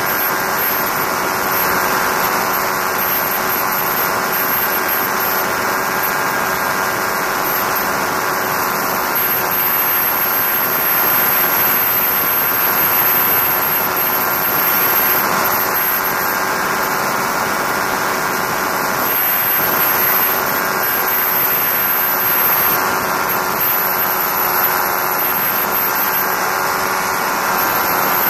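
Challenger II ultralight aircraft in cruising flight: its engine and propeller drone steadily, with wind rushing over the camera mounted outside under the wing.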